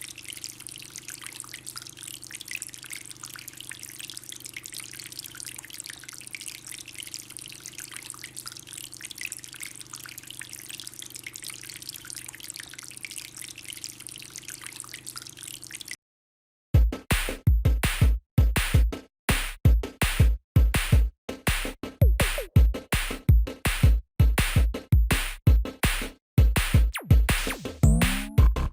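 Water from a small homemade fountain trickling and splashing steadily over a faint low hum. After about sixteen seconds it cuts off, and electronic music with a heavy, regular beat starts.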